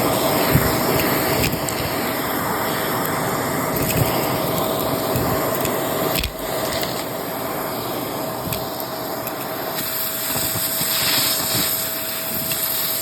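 Vacuum cleaner with a crevice tool running steadily with a constant whine, sucking up crunchy debris that crackles and clicks through the nozzle now and then.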